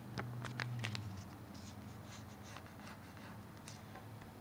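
Sheet of origami paper being folded and creased by fingers: soft rustling and rubbing, with a few sharp crackles in the first second and fainter scraping after.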